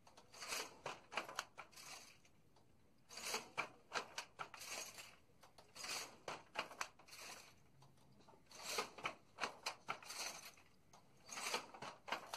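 Traditional wooden handloom with a jacquard punch-card head weaving a saree. It gives bursts of wooden clacking and knocking about every three seconds as each weaving stroke is made.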